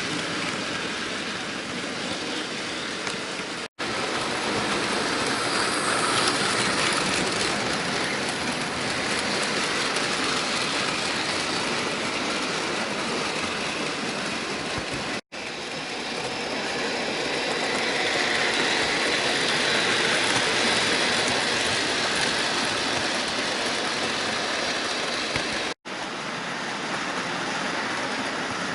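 Bachmann model trains running on the layout: a steady whir of small electric motors and wheels rolling on the track. The noise is broken by three momentary drop-outs.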